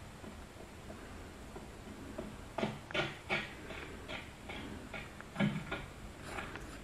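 Footsteps: a run of about a dozen irregular scuffing steps and knocks starting about two and a half seconds in, over the faint steady hiss of an old film soundtrack.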